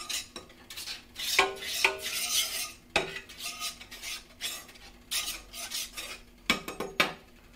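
A metal utensil, most likely a spatula, scraping across a hot flat-top griddle plate to spread a thin layer of peanut oil, in a run of short scraping strokes.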